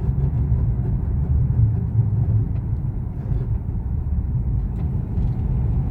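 In-cabin noise of a 2013 Nissan Rogue being driven: a steady low rumble of road and drivetrain.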